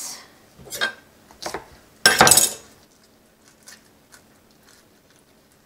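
Kitchen handling sounds as a cabbage roll is shaped by hand over a wooden cutting board: two short knocks in the first second and a half, then a louder clatter lasting about half a second, about two seconds in, followed by a few faint ticks.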